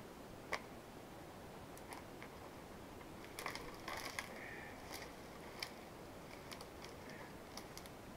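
Faint, sharp snaps and cracks of small dry branches and twigs being broken by hand, scattered singly with a quick cluster of them about three and a half to four seconds in.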